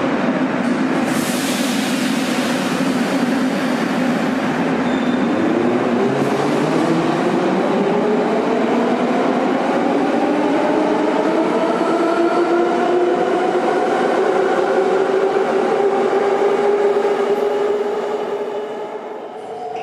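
Class 81 metro train built by Metrowagonmash pulling out of an underground station: a brief hiss about a second in, then the traction motors whine in a steadily rising pitch as it accelerates, the sound dropping away near the end as the last car leaves.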